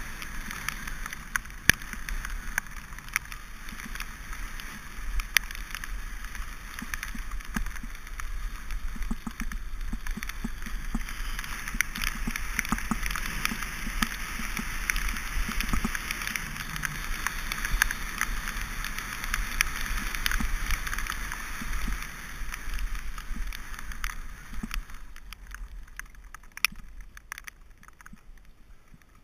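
Mountain bike tyres rolling fast on a wet surface, hissing and spraying water, with the bike clattering and clicking over bumps and a low rumble underneath. It quietens over the last few seconds.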